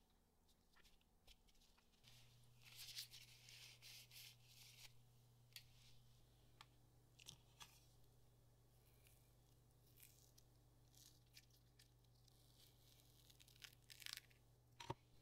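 Faint crackling and rustling of a flexible silicone mold being flexed and peeled off a cured glitter resin casting, with a few soft clicks and a sharper snap near the end as the piece comes free.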